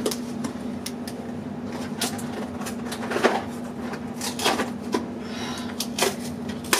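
Steady hum of a 30-odd-year-old air-conditioning unit, with several sharp knocks and clatters from things being handled in a kitchen.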